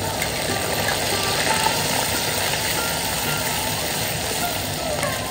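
Food sizzling steadily in hot oil in a pan.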